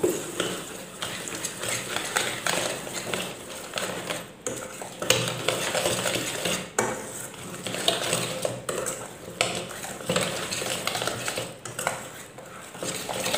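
Wire whisk stirring a thick corn, coconut milk, rice flour and sugar batter in a stainless steel bowl, the wires scraping and clinking against the metal in an uneven rhythm.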